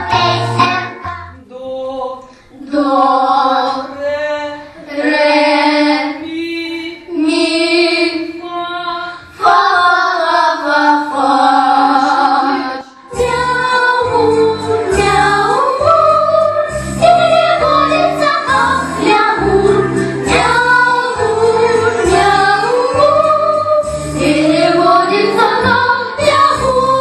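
Young girls singing a song solo in turn into microphones, over backing music. About thirteen seconds in, a low, steady beat comes in under the singing.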